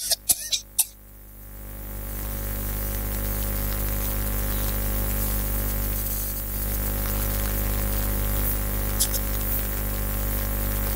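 A few sharp clicks near the start, then a steady hiss with a low electrical hum that swells in over the first two seconds and holds, from the open sound system.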